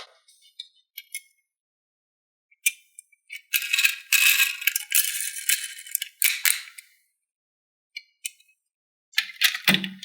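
Small toy pieces rattling and clicking as they are handled: a few separate clicks, then about three seconds of dense, high clattering, then more clicks near the end.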